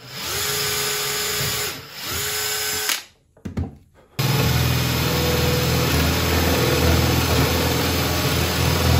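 Metabo cordless drill boring into a wooden block with a spade bit: two short runs, each spinning up and then winding down, a few light clicks, then a longer, louder steady run under load from about four seconds in.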